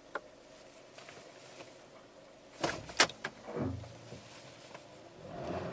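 2016 Hyundai Sonata's engine idling at about 1,000 rpm, heard from inside the cabin, with a couple of sharp clicks and a low thump about three seconds in.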